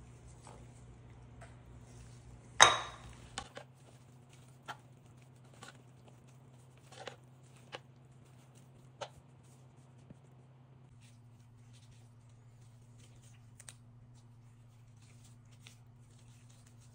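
A sharp clatter of dishware about two and a half seconds in, as the small bowl that held the diced kielbasa knocks against the mixing bowl. After it come scattered soft clicks and scrapes of a spatula tossing spiral pasta salad in the bowl, over a low steady hum.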